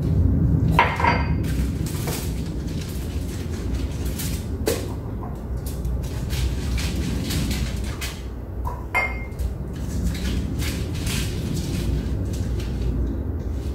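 Handling of a foil-wrapped baking pan: aluminium foil crinkling as it is pressed around the pan, with a few sharp knocks of the pan against the counter.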